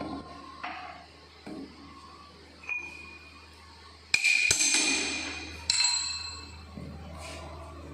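Steel parts and tools clinking and ringing as they are handled on a horizontal milling machine's table and vise: a few light clinks, then a loud ringing clang about four seconds in that slowly dies away, and a second clang near six seconds. A low steady hum runs underneath.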